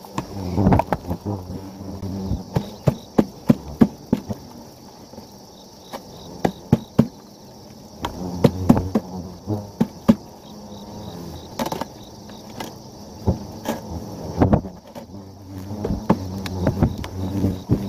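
Asian giant hornets buzzing inside a container as they are caught and put into it, with many sharp clicks and taps through a steady low buzz.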